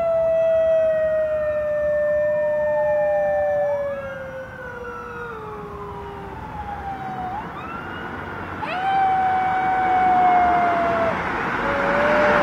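Golden jackal howling: a long, slowly falling howl, with a higher second voice rising and falling alongside it. A new howl starts about nine seconds in, followed by a short lower one near the end.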